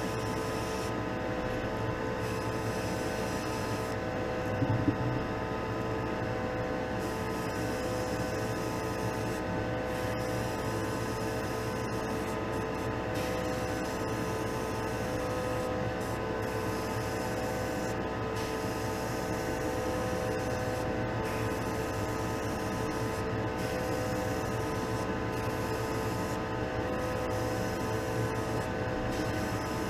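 Spray-booth exhaust fan running with a steady hum, while an airbrush hisses on and off in short bursts. One brief knock about five seconds in.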